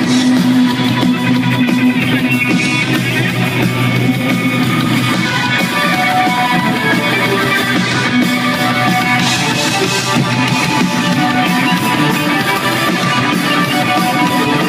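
A live indie rock band playing loud and steady: electric guitars over a driving drum kit, heard from the audience in a large arena.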